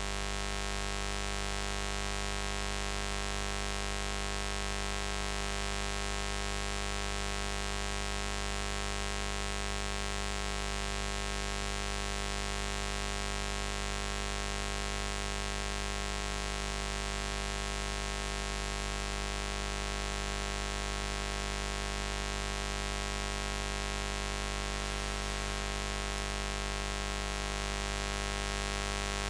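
Buzz sound effect: a continuous, unchanging buzz with a strong low hum and many overtones reaching high up.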